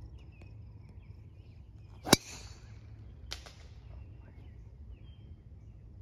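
A golf driver striking a ball off the tee: one sharp crack about two seconds in, followed about a second later by a fainter click. Birds chirp faintly in the background.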